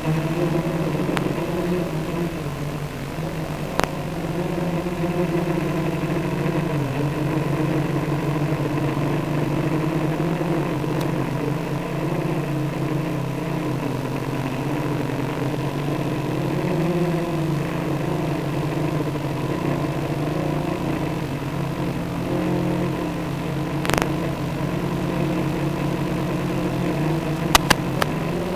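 Multirotor copter's motors and propellers humming steadily in flight, the pitch wavering slightly as the throttle changes, heard over the FPV video link. A few sharp clicks cut in, one around 4 seconds, one around 24 seconds and two close together near the end.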